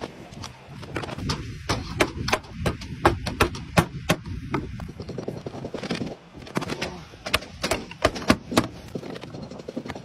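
A slater's hammer nailing roof slates: quick runs of sharp taps, several strikes a second, in two spells, the second starting about six seconds in.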